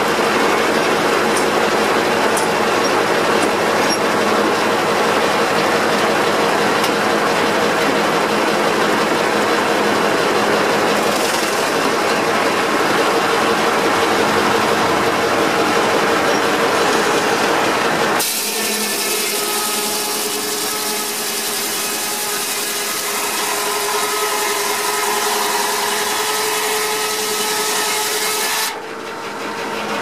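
Large steam-driven circular sawmill blade cutting lengthwise through a log on the carriage: a loud, steady rasp with a held hum. About two-thirds of the way in, the sound changes abruptly to a quieter running blade with several ringing tones.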